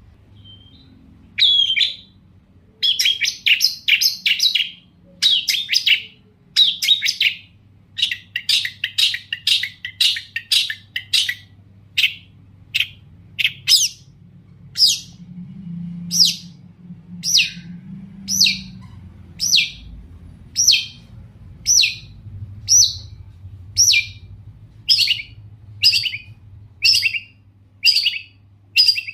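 Long-tailed shrike (cendet) singing loudly. It gives rapid chattering bursts through the first ten seconds or so, then settles into single sharp, falling calls repeated about once a second. A faint low hum runs underneath.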